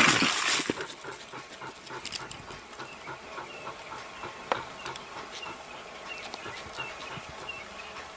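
Leopard and porcupine scuffling: a loud hissing, snarling burst in the first second, then scattered clicks and rustles. A faint high chirp repeats about every two-thirds of a second through the second half.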